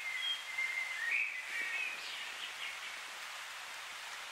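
A bird singing a short phrase of clear whistled notes over a steady hiss, the song ending a little under three seconds in.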